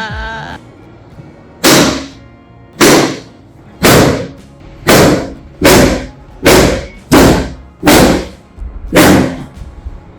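A series of nine heavy thumps, roughly one a second, each sudden and fading quickly.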